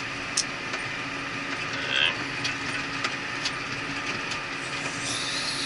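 Cat Challenger 535B tractor engine running steadily under load, heard inside the cab, with a few light clicks.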